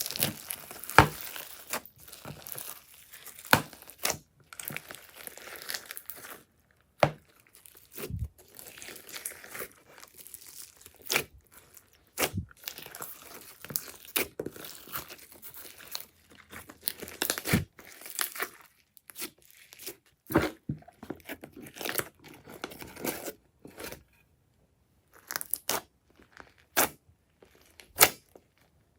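Glossy slime being squished, stretched and pressed by hand, giving irregular sticky pops, clicks and crackles.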